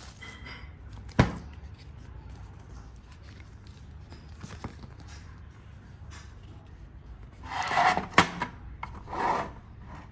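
Plastic label holder stand being handled on a hard tabletop: a single sharp knock about a second in, then scraping and rubbing near the end with a sharp click in the middle of it.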